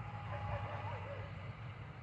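Steady low rumble of distant road traffic under an outdoor hush, with a faint wavering higher call in the first second.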